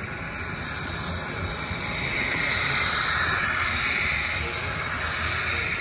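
Model diesel locomotive running along the track close by: a steady mechanical whine over a low hum that grows louder as the engine approaches, loudest about three to four seconds in as it passes.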